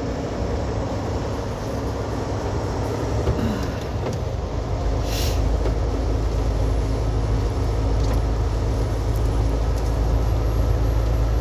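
Semi-truck driving on a wet highway, heard from inside the cab: a steady engine and road drone with the noise of tyres on wet pavement. The low drone gets louder and deeper about five seconds in, and a brief hiss comes at the same point.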